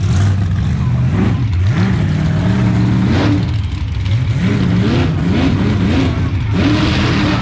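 Monster truck engine revving repeatedly, its pitch climbing and dropping in several surges over a steady low engine drone.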